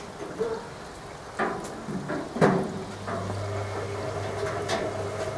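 Hoover Logic washing machine during its woollens cool-down: a couple of sharp knocks, then a steady low hum starting about halfway through as the motor turns the drum.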